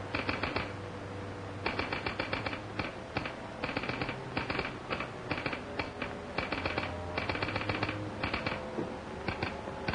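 Telegraph sounder clicking out Morse code: quick runs of sharp clicks broken by short pauses.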